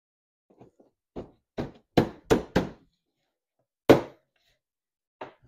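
A fist thumping the plastic rear body of a 2007 Club Car Precedent golf cart to snap it down onto its clips: a run of sharp, uneven knocks, three close together about two seconds in and the loudest a single blow near four seconds.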